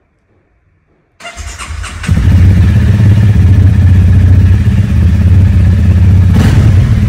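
Honda CRF300L single-cylinder engine started on its electric starter after sitting almost a year: about a second of cranking, then it catches on the first try about two seconds in and runs at a steady, loud idle.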